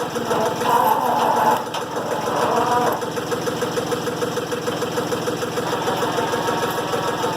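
Diesel engine of a Timberking 1400 sawmill idling steadily with an even firing beat, with some uneven higher mechanical sounds in the first three seconds.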